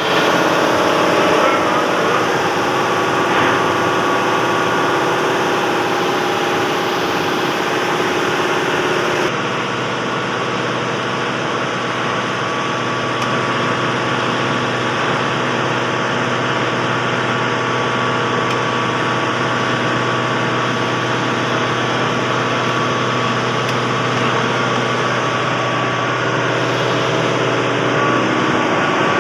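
Kirloskar compressor running steadily under load, a continuous mechanical hum with several steady tones. About nine seconds in, the sound changes abruptly and becomes slightly quieter and duller.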